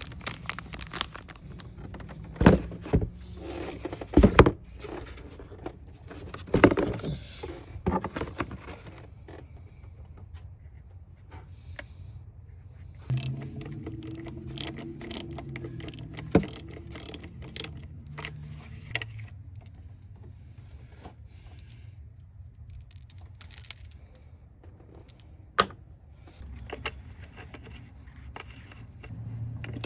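Irregular metallic clinks, taps and scrapes of tools and parts being handled while replacing a PCV valve, with the loudest knocks in the first several seconds, over a steady low hum.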